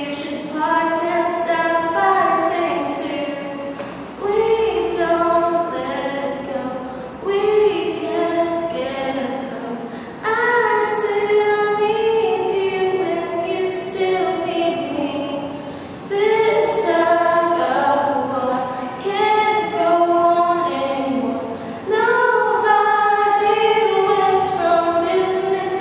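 Two women singing a song together without accompaniment, moving through a melody with long held notes.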